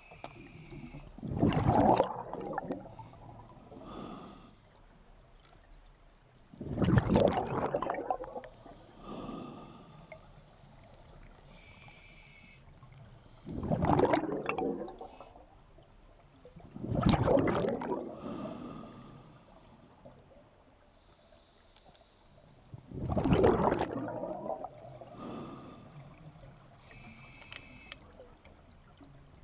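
Scuba diver breathing underwater on an open-circuit regulator: exhaled bubbles rush out five times, every three to six seconds, with fainter regulator hiss on the inhales between.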